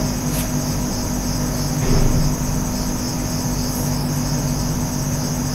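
A steady high-pitched hiss with a low hum under it, unchanging and with no pulses.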